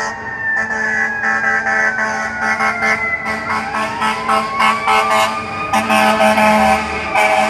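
FDNY fire engine responding with its air horn in quick repeated blasts over a wailing siren whose pitch slides down and then climbs again, growing louder near the end as the rig passes.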